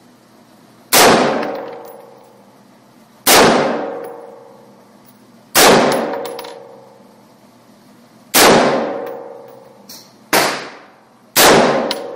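AR-15 rifle fired six single shots at an uneven pace, each a sharp crack followed by a long ringing echo that dies away over about a second; the last two come about a second apart.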